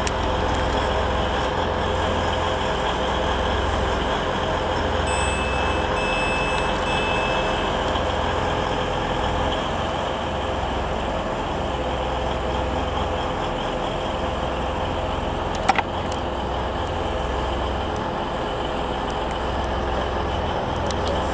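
A TransPennine Express Class 185 diesel multiple unit idling at the platform: a steady diesel hum with a whine over it. Three short high beeps come about a quarter of the way in, and a single sharp click follows about three-quarters of the way through.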